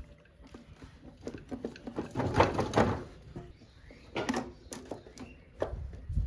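Scattered knocks, clinks and rattles of hand tools and motorcycle parts being handled while the carburetor is taken off, with a busier stretch of rattling about two seconds in.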